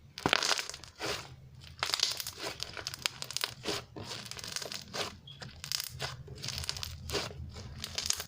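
Homemade slime being squeezed, poked and stretched by hand for ASMR, giving a run of irregular squishing and crackling noises.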